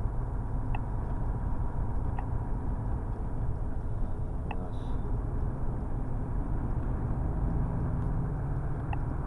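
Truck running on the road, heard from inside the cab: a steady low engine and road rumble, with a few faint, short ticks now and then.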